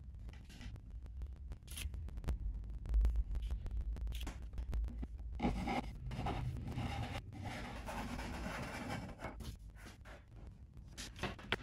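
Pencil scratching marks on a white radiator-cover board, with a dense stretch of scratching in the middle. Sharp clicks and light knocks from a folding ruler and panels being handled come before and after it.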